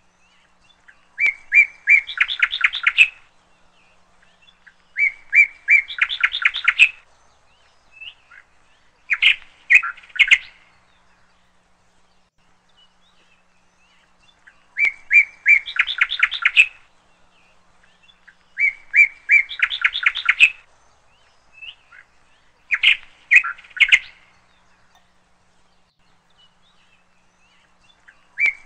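Songbird singing: phrases of a few clear repeated notes running into a rapid trill, one about every four seconds, some of them shorter. The same sequence of songs repeats about every fourteen seconds.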